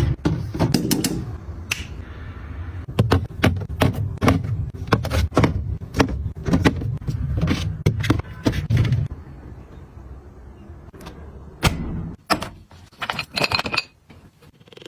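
Quick run of clicks, taps and knocks from small hard objects being handled and set down, several a second, over a low rumble that stops about two thirds of the way through; a few louder knocks come near the end.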